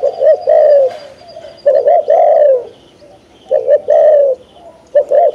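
Caged spotted dove used as a trapping decoy, cooing in four short phrases, each under a second long, with brief pauses between them.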